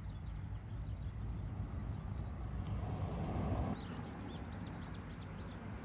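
Small birds chirping, ending in a quick run of about five repeated high notes. About three seconds in, a brief rushing noise swells and cuts off suddenly, the loudest sound here, over a steady low outdoor rumble.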